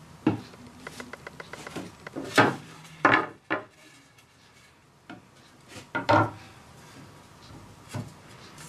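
Wooden drawer boards being handled and knocked together while a drawer box is assembled: a handful of sharp wooden knocks and clatters, with a run of light ticks in the first couple of seconds.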